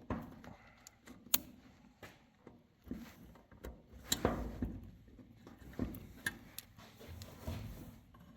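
Scattered light clicks, knocks and handling noise from fumbling one-handed at an ignition key switch that will not turn. There is one sharp click about a second in, and no starter or engine sound.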